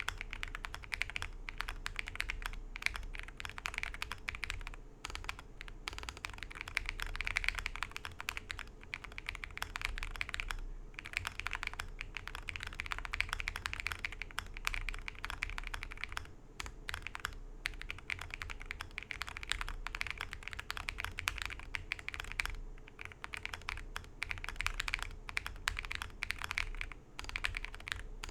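Typing on a Weikav Record V2 mechanical keyboard fitted with Akko V3 Cream Blue Pro tactile switches: a quick, continuous run of keystroke clacks, broken by short pauses every few seconds.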